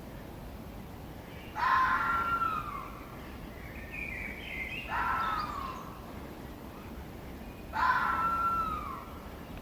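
A fox giving three drawn-out calls, each about a second long and falling in pitch, with a fainter, higher call between the second and third. A steady hiss runs under the calls.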